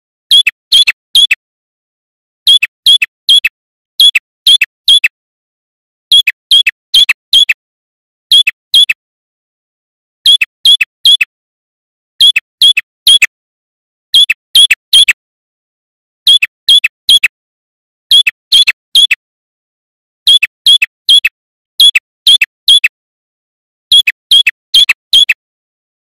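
Male tailorbird (prenjak kepala merah) singing: short bursts of usually three sharp, downward-sweeping notes, repeated about every two seconds with silence between.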